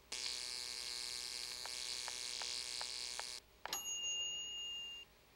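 Cartoon machine sound effect of a bottle warmer at work: a steady electric buzzing hum for about three seconds, with a few clicks near its end. It stops, and after a click a high beep tone is held for about a second, signalling that the milk is warm.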